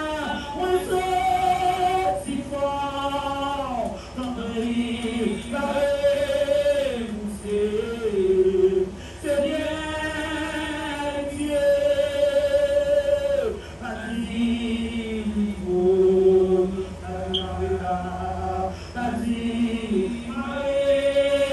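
Several voices singing together in long held notes, a slow worship song.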